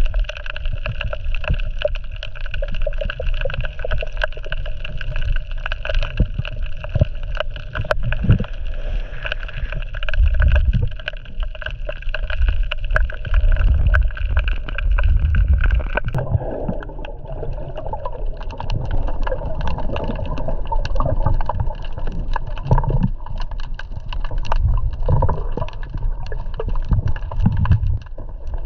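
Muffled water sloshing and gurgling, heard through a camera in the water while swimming. The sound changes abruptly about sixteen seconds in.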